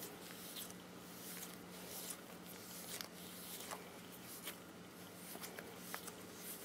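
Faint squishing and soft rustling of a squishy corn dog toy, filled with a sand-like filling, being squeezed and kneaded in the hands, with scattered soft ticks. A faint steady low hum runs underneath.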